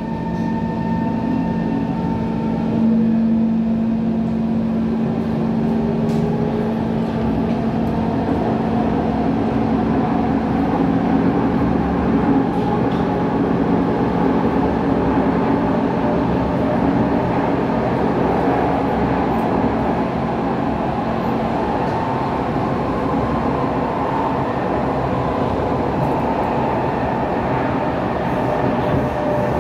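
SMRT C151 metro train running, heard from inside the carriage: a steady rumble of wheels and running gear, with two steady low hums for the first several seconds that then fade.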